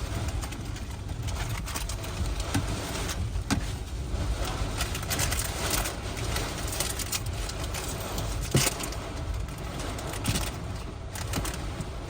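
Hurricane wind and rain: a steady rushing roar with wind rumbling on the microphone, broken by scattered sharp knocks, the loudest about two-thirds of the way through.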